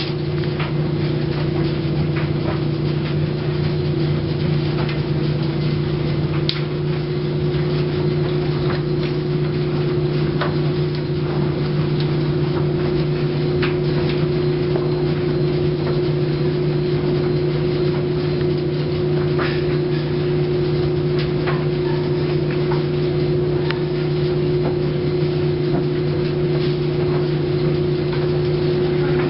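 Steady, unchanging machine hum from an appliance running close by: a low drone with a second, higher tone above it over a soft hiss. A few faint ticks are scattered through it.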